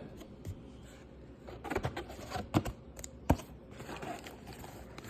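A cellophane-wrapped trading-card pack being pulled from its cardboard box: crinkling and scraping, with a few sharp clicks in the middle.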